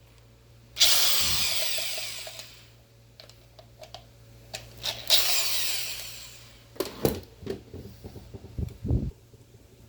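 Drill with a T30 Torx bit running in reverse in two bursts, about a second in and about five seconds in, each fading away, as it backs out the bolts holding the thermostat housing together. A few sharp knocks and clicks follow near the end.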